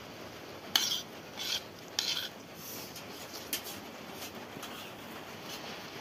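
Metal spoon scraping and clinking against a plate while scooping rice, with a few sharp clinks about one, one and a half, two and three and a half seconds in.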